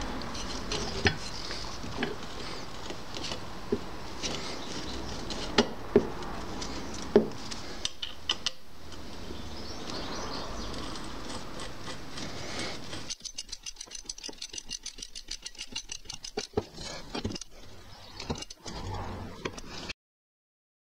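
Metal clinks and knocks as a Honda roller mower's steel rear roller and its cast side bracket are handled and fitted together, with a few sharper knocks in the first half and a fast run of clicks later on. The sound cuts out shortly before the end.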